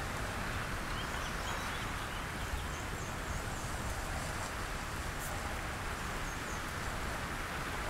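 Steady dry rustling hiss of a mass of red-sided garter snakes sliding over one another, with a few faint high bird chirps.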